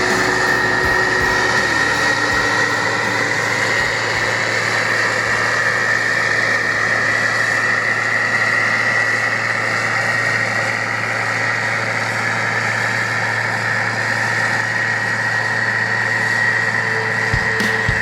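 Harvest machinery running steadily: an even engine drone with a steady high-pitched whine over it.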